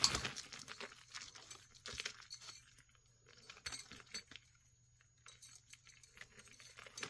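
Costume jewelry jangling and clinking as pieces are handled and sorted: a rustle at first, then scattered small clicks of metal and beads, pausing briefly about two-thirds of the way through.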